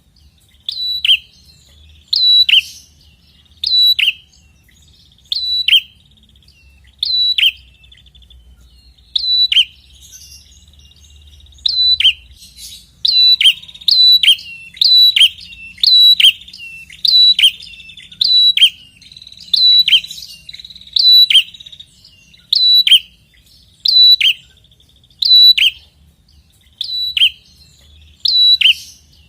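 Prenjak kepala merah (red-headed prenjak) calling insistently: a loud, sharp call that slurs down, repeated about every second and a half at first and quickening to about one a second partway through, with a faint trill between the calls.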